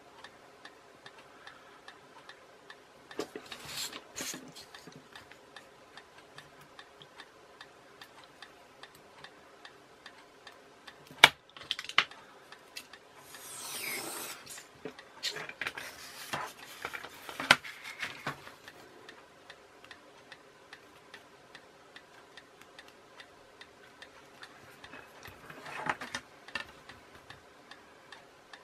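Steady soft ticking throughout, over scattered workbench handling noises as a steel ruler and foam plate are moved about on a cutting mat: a sharp click about eleven seconds in, the loudest sound, and a spell of scraping and rustling in the middle.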